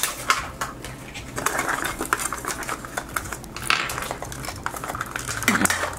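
Hands handling a Zuru 5 Surprise Mini Brands capsule ball and small plastic miniatures: many small plastic clicks and taps with brief crinkles of the wrapper.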